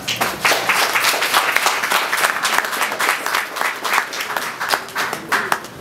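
Small audience applauding: a dense run of hand claps that dies away just before the end.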